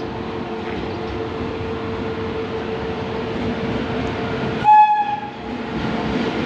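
Indian Railways electric locomotive hauling an express train into a station, its steady rumble growing louder as it approaches. One short horn blast sounds a little under five seconds in.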